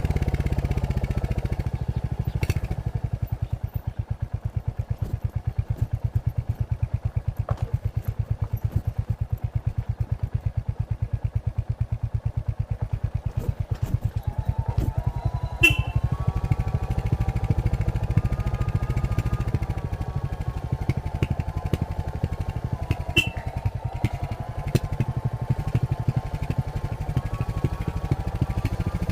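Royal Enfield Hunter 350's single-cylinder engine through its stock exhaust, running at low revs with a steady train of exhaust beats. It eases off over the first few seconds and then holds an even pace. About halfway, a higher wavering whine joins it.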